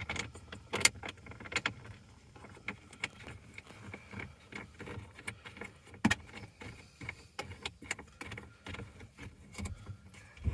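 A metal phone mount's pivot arm and thumb nut being handled, loosened and fitted over the mount's ball: irregular clicks, taps and light rattles of metal parts, the sharpest about six seconds in.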